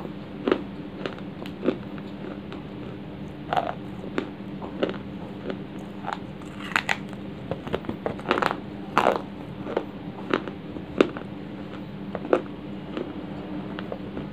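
Dry baked clay from a broken clay pot being bitten and chewed: sharp crunches at irregular intervals, coming closer together a little past the middle. A steady low hum lies beneath.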